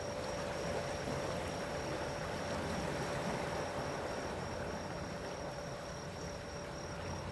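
Steady wash of the sea at night, with a high insect chirp pulsing evenly about three times a second.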